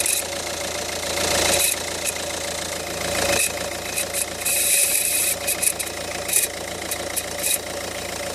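Ford Focus 1.6 engine running with a grinding noise. It swells louder twice in the first few seconds, then carries irregular sharp clicks and rattles.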